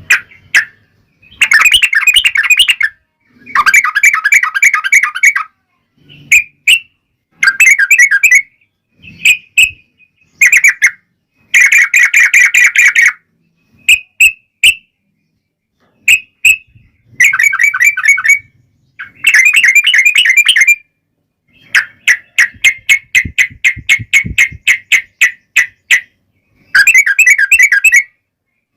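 Yellow-vented bulbul (trucuk) singing its long, fast chattering song in repeated phrases of one to two seconds with short pauses. Over the later part, one longer run of quick separate notes.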